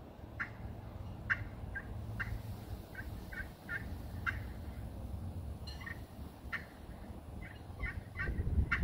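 Zebrawood pot-style friction turkey call with bronze, glass and aluminum striking surfaces, played by hand: about a dozen short, separate yelps and clucks at uneven spacing. Wind rumbles on the microphone, more strongly near the end.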